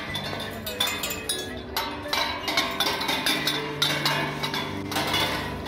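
Background music: sustained low chords that change every few seconds, under frequent bright, clinking percussion hits.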